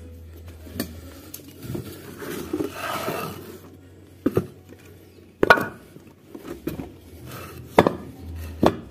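About five sharp, irregular knocks and clatter as a motorcycle wheel with its tire is handled and shifted on a concrete floor, with a short scraping noise about three seconds in.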